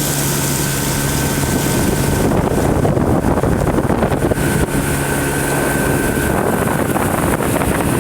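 Motorboat engine running at a steady speed, with wind rushing over the microphone.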